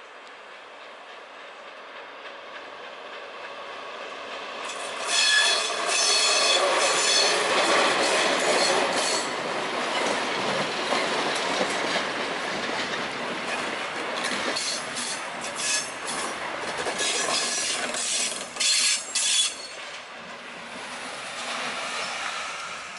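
A track-maintenance machine train hauled by a DB class 218 diesel-hydraulic locomotive rolls past, growing louder as it approaches. Its wheels squeal sharply in bursts on the curve and clatter over the rail joints.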